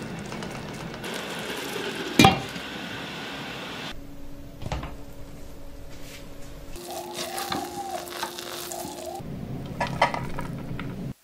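A spatula stirs cooked biryani rice in a metal pot, scraping and rustling, with a sharp knock against the pot about two seconds in. A quieter stretch with a steady low hum follows. Near the end, a serving spoon scoops rice onto a plate with a few clinks.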